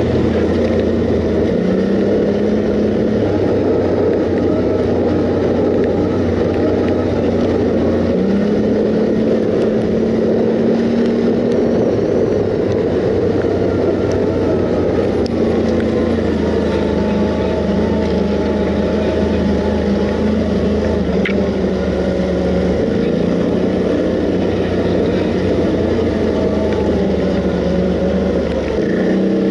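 Quad bike (ATV) engine running steadily under way, heard from the rider's seat, its pitch shifting in small steps every few seconds, over a constant rush of riding noise.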